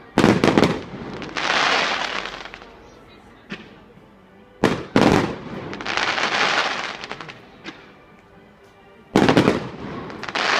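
Aerial firework shells bursting in three rounds, about four and a half seconds apart. Each round is a quick cluster of loud bangs followed by a couple of seconds of crackling.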